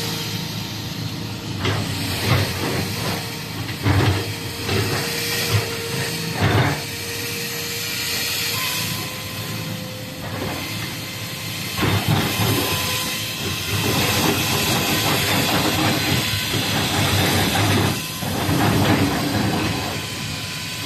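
Komatsu PC450-8R hydraulic crawler excavator running: a steady hissing machine noise with a faint whine, several sharp clanks in the first seven seconds, and louder working noise from about twelve seconds in.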